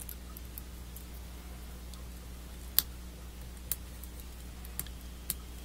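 Small plastic parts of a Master Grade Gundam AGE-2 model kit leg clicking as they are pressed and snapped together by hand: four sharp clicks, the loudest a little under three seconds in, with fainter ticks between, over a steady low hum.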